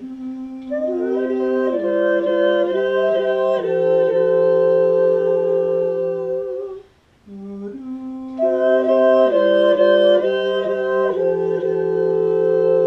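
Four-voice a cappella vocal quartet, one man and three women, singing sustained chords from sheet music: the voices come in one after another from the lowest, and the chord shifts every couple of seconds. The phrase stops about seven seconds in and starts again from the beginning.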